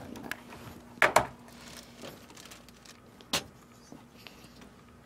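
A door being handled and opened: a pair of sharp clicks about a second in and a louder single knock a little past three seconds, over a faint steady hum.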